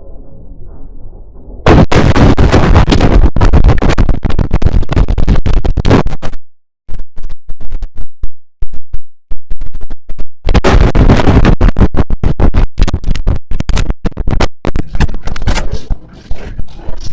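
IBM OS/2 Warp 3 shutdown sound mangled by stacked digital effects. It is muffled and quiet for the first second and a half, then suddenly very loud and harsh, chopped into rapid stuttering fragments. It breaks into clicks and short silences in the middle, then goes loud again and stutters near the end.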